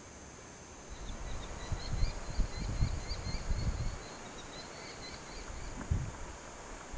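Gusts of wind buffeting the microphone with a low rumble over the first half, while a small songbird sings a run of short, high, repeated chirps, about four or five a second. A single soft thump near the end.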